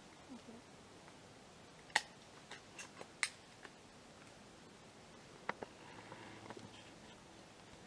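Quiet woods broken by a scatter of faint, sharp clicks and snaps, the loudest about two seconds in, a quick run of them just after, and a few more about five and a half seconds in.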